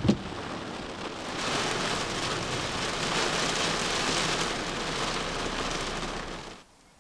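Rain falling steadily during a thunderstorm, swelling louder about a second and a half in and cutting off suddenly near the end. A short thump right at the start.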